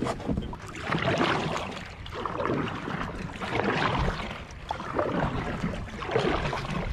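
Water sloshing and splashing around a moving kayak, swelling and fading every second or two.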